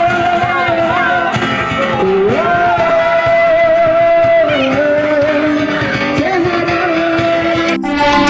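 Music with a singer holding long, wavering notes over accompaniment; it breaks off abruptly near the end and different music begins.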